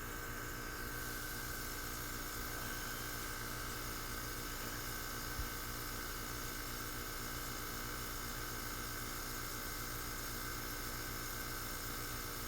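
R-410A heat pump outdoor unit running steadily in heating mode: an even whir and hum from the compressor and fan, with one faint tick about five seconds in.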